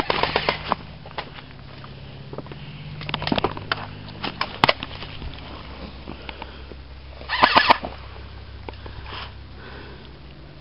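Airsoft guns firing in short clusters of sharp snaps, the loudest burst a little past the middle, over a steady low hum.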